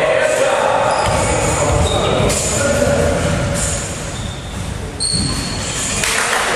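Echoing sports-hall ambience between volleyball rallies: indistinct voices, with a low rumble through the middle few seconds.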